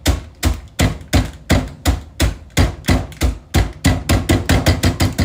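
Bag of Takis rolled tortilla chips being pounded to crush them: a steady run of hard thuds, about three a second, speeding up to about six a second near the end before stopping.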